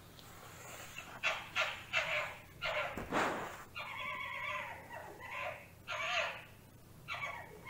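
A fox calling: a quick run of short, sharp yapping calls, then a few longer, drawn-out calls from about four seconds in.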